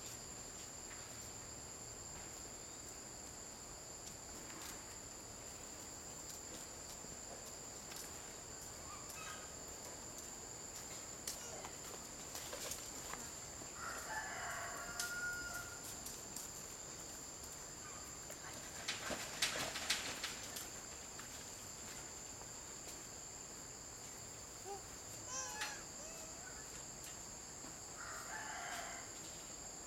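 Steady high-pitched insect drone, with a rooster crowing once about halfway through. A short burst of clicks just past the middle is the loudest sound, and a few short chirps follow near the end.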